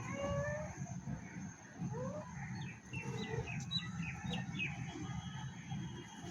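A kitten mewing a few short times, followed by a run of short high chirps, over a steady low rumble.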